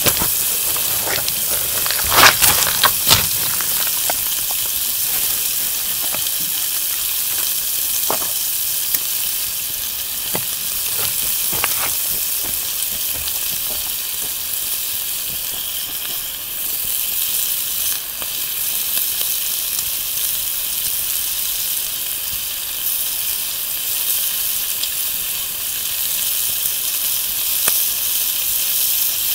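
Bacon sizzling in a frying pan over a small wood fire, a steady frying hiss, with a few sharp clicks about two to three seconds in.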